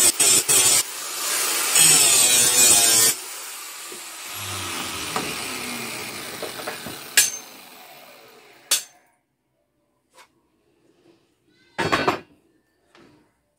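Angle grinder grinding a steel knife blank, first in short broken passes and then steadily, with a loud hiss of metal on the disc. About three seconds in the grinding stops and the disc winds down, fading over several seconds, with a couple of sharp knocks; a loud metal clank comes near the end.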